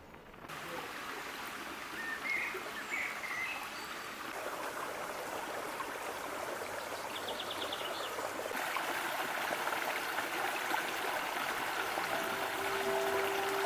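Steady rushing of a mountain stream, growing slightly louder partway through.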